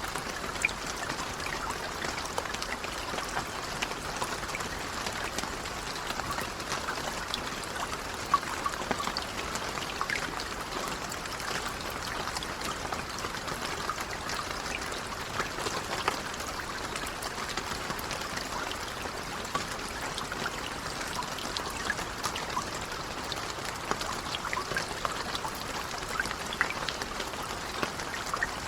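Steady, gentle rain falling, with individual drops pattering and ticking close by.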